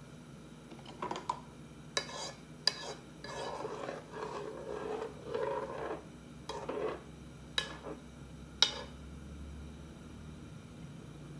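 A utensil stirring and scraping inside a pot, with several sharp clinks against the pot, the loudest near the end.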